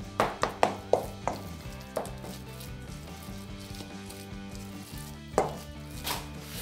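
Wooden spatula knocking and scraping against a stainless steel mixing bowl while mixing a rice and kimchi filling: a quick run of about six knocks in the first two seconds, then two more near the end.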